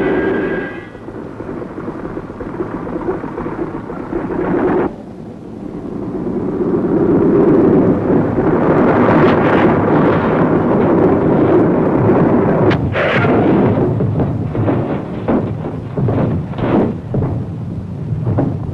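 Loud rumbling piston aircraft engine noise that cuts off abruptly about five seconds in, then swells again. A run of sharp bangs comes over it in the last six seconds.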